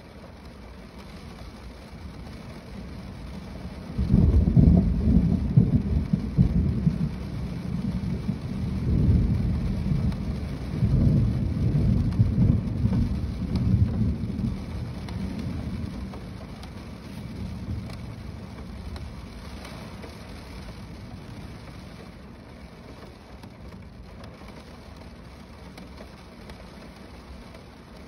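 Steady rain falling on a car roof, with a long, low rumble of thunder that starts suddenly about four seconds in, rolls in several swells and fades away over the next fifteen seconds or so.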